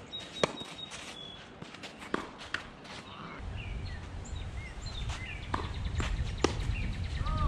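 A few sharp knocks of a tennis ball off racket and hard court, with footsteps, on an outdoor court. Birds chirp in short calls, and a low rumble of wind on the microphone comes in about halfway and grows louder.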